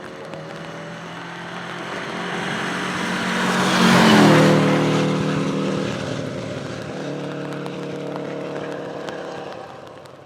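Subaru Impreza 555 Group A rally car's turbocharged flat-four boxer engine passing at speed: it grows louder, is loudest about four seconds in with a drop in pitch as it goes by, then pulls away and fades near the end.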